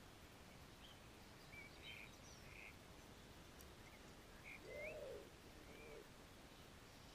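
Faint garden birdsong: a scatter of short high chirps and whistles, one sweeping up in pitch, then a short low coo about five seconds in, the loudest sound, and a softer one a second later.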